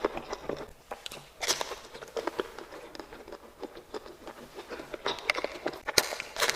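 Close-miked eating sounds: bites and crunchy, crackly chewing of sweets, with sharper bites about a second and a half in and near the end.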